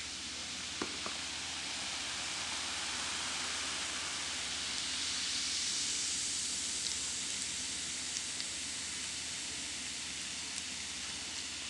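Baking soda and vinegar fizzing in a bowl: a steady, high hiss of bubbles that swells toward the middle and eases slightly, with a few faint pops.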